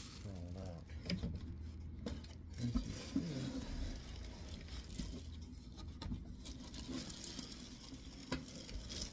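Plastic wrapping and cardboard packing rustling as a cookware lid is unpacked from its box, with a few light knocks of handling.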